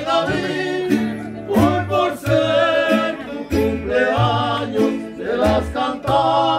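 Mariachi band playing a dance tune: a pitched melody with vibrato over regularly strummed guitars and a plucked bass line stepping between notes.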